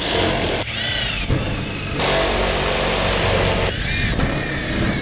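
Power drill driving screws in steel building sheeting, running in bursts, its whine bending in pitch briefly twice.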